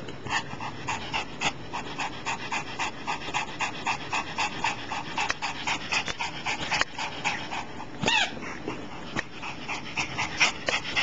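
Pomeranian panting quickly and evenly, about three to four breaths a second, with one short high-pitched note about eight seconds in.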